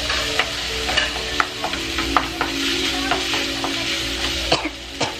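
Kimchi fried rice sizzling in a frying pan while a wooden spatula stirs and scrapes through it, with irregular sharp taps of the spatula against the pan.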